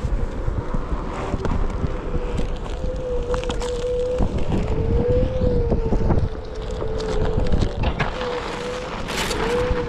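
Onewheel GT-S electric hub motor whining while being ridden, its pitch wavering up and down as the speed changes, over wind buffeting the microphone and tyre rumble; a brief gust of wind noise near the end.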